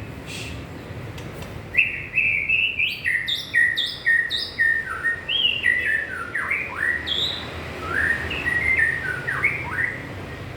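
A murai songbird singing a varied run of clear, whistled notes and phrases, many sliding quickly downward in pitch, starting about two seconds in and stopping shortly before the end, over a steady low background hum.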